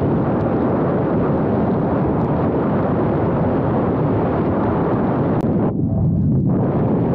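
Loud, steady rush of wind and road noise on the microphone of a moving vehicle, briefly muffled about six seconds in.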